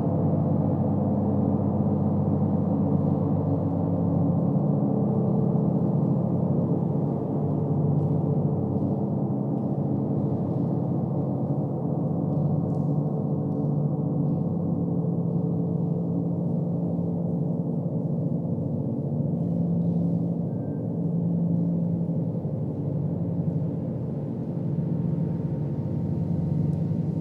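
Large gong on a stand played with a mallet, giving a continuous dense drone of many tones that swells and ebbs slowly, with no separate strikes standing out.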